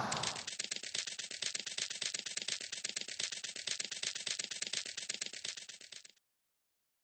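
Cartoon footstep sound effect for a small chick walking: a quick, even patter of light taps that grows fainter and stops about six seconds in.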